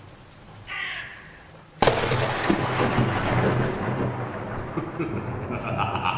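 Intro sound effects of a storm: a crow caws once, then a sudden loud thunderclap about two seconds in rumbles on for several seconds, and a steady high tone swells in near the end.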